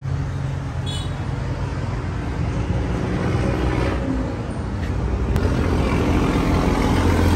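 A motor vehicle engine running steadily with a low rumble, slowly getting louder toward the end, with a short faint high chirp about a second in.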